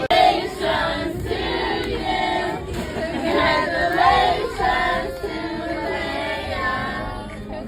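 Several voices singing together, a song with a melody that rises and falls throughout.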